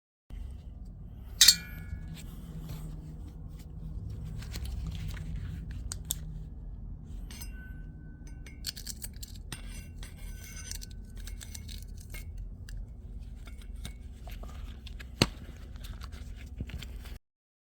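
Metal parts of a diesel heater burn chamber clinking and clicking as it is handled and taken apart, with two sharp knocks louder than the rest, about a second and a half in and near the end, over a steady low hum.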